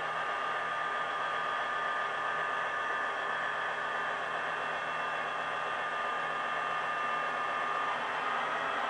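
A model diesel locomotive's Soundtraxx DSX EMD sound decoder playing a turbocharged EMD 645 prime mover through the model's small speaker: a steady hiss with a thin whine whose pitch shifts near the end. The decoder's turbo sound does not match a real GP15-1, which is naturally aspirated.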